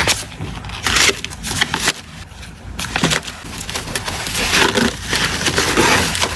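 Packing materials being handled: irregular rustling and crinkling in short bursts, with a quieter stretch about two seconds in.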